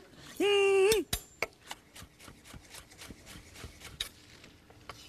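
A short hummed vocal note about half a second in. Then soft, irregular clicks and taps of kitchen utensils against dishes as food is plated.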